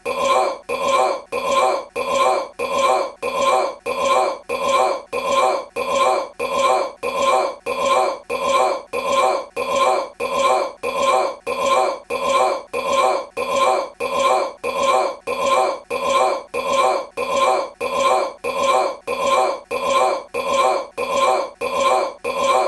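A man's short belch repeated over and over as an identical loop, about two belches a second.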